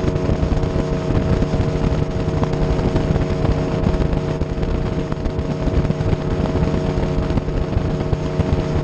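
Bass boat's outboard motor running steadily at speed, a constant engine tone under loud wind and water noise.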